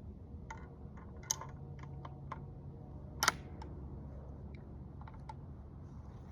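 An antique rifle being handled, giving a string of light metallic clicks and knocks at uneven intervals, the sharpest about three seconds in. There is no shot.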